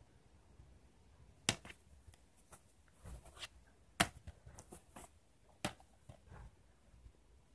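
Plastic DVD cases being handled and shifted by hand: three sharp clacks, about one and a half, four and nearly six seconds in, among softer rustling and tapping.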